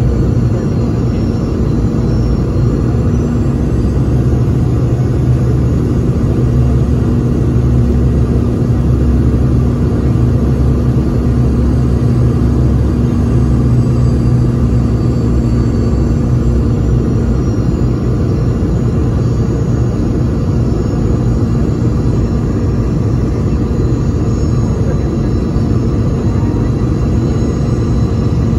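Steady cabin rumble inside a Boeing 717 descending on approach to land, from airflow and the two rear-mounted Rolls-Royce BR715 turbofans, with a faint high engine whine that drifts slowly in pitch.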